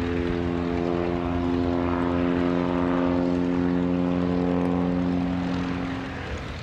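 Pitts Special aerobatic biplane's piston engine and propeller droning in flight, a steady pitched drone that fades slightly near the end.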